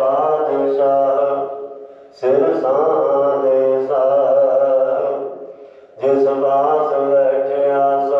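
A man's voice chanting Gurbani recitation of the Sikh scripture in long, drawn-out melodic phrases with short pauses between them: one phrase ends about two seconds in, another runs to about halfway, and a third begins near the three-quarter mark.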